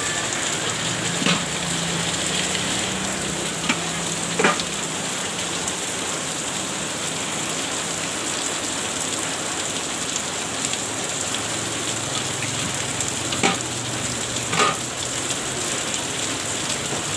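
Steady hiss of rain mixed with an egg frying in hot oil, broken by about five sharp knocks or clicks, likely the vendor's utensils.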